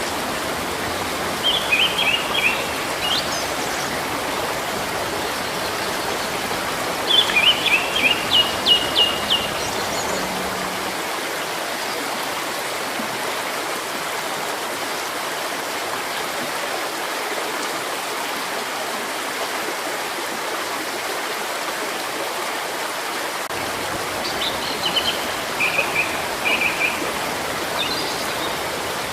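Steady rushing of a flowing stream, with small birds singing short chirping phrases over it three times: near the start, around a quarter of the way in, and again near the end.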